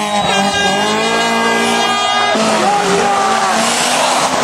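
Rally car engines revving hard through a tight hairpin, one car after another. A bit over two seconds in, the first car's steady note gives way to a different, rougher engine note.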